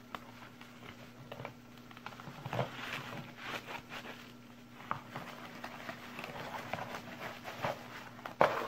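Bubble wrap and plastic packaging rustling and crinkling as it is handled, with scattered taps and a louder clatter near the end, over a faint steady hum.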